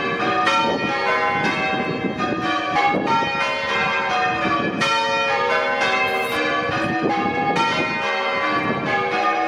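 Church bells ringing, many strikes following quickly one after another with their tones overlapping and ringing on.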